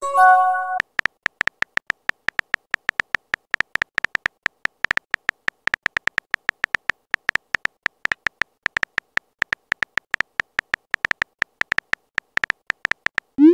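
Simulated phone-keyboard typing clicks, short high ticks about five a second as a text message is typed out. A brief chime of several steady tones sounds just after the start, and a short rising swoosh comes right at the end, the app's message-send sound.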